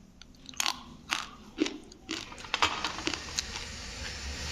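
Person biting into and chewing a piece of mix butter grey, a crunchy earthy grey chunk eaten as a snack. About five sharp crunchy bites come in the first three and a half seconds, then a steadier grinding chew.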